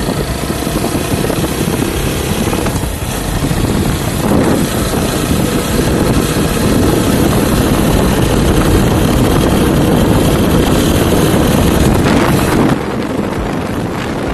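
Wind rush and the TVS Apache RTR 160 4V's single-cylinder engine, loud and steady while riding and picking up speed. The loudness drops suddenly near the end. The rider says the gap between the handlebar visor and the instrument cluster lets a lot of air and engine noise through.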